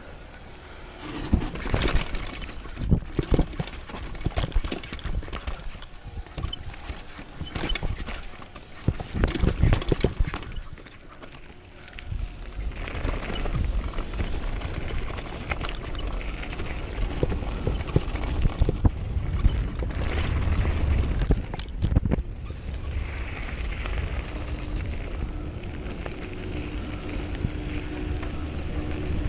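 Mountain bike descending fast: the frame and parts rattle and clatter over rough forest trail, then from about twelve seconds in the tyres rumble steadily on a gravel road, with a few more knocks a little after twenty seconds.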